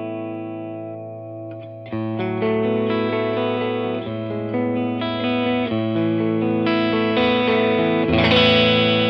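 Yamaha Revstar RSS02T electric guitar with P90 pickups played through a Laney CUB-Super 12, a 15-watt all-tube combo with one 12-inch speaker, on a very bitey clean setting. A chord rings and fades, then from about two seconds in a run of chords and notes is played.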